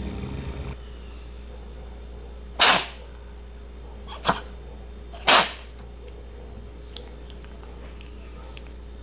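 A cat with chronic feline rhinotracheitis (feline herpesvirus) sneezing three times, the second sneeze shorter and weaker than the other two. The sneezing is a sign of one of its respiratory flare-ups.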